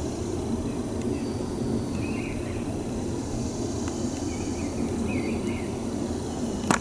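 Outdoor rural ambience: a steady low rumble with faint bird chirps now and then, and a sharp knock right at the end.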